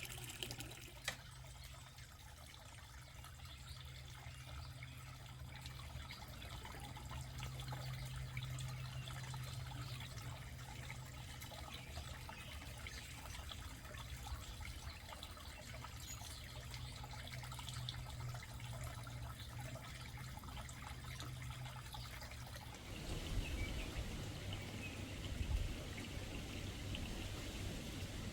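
Water trickling and running over a steady low hum. About 23 seconds in the sound changes, the hum giving way to uneven low rumbling.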